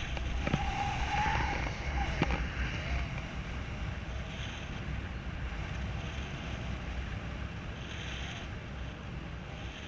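Airflow buffeting the camera microphone in paraglider flight: a steady low rush of wind noise, with two light knocks in the first few seconds.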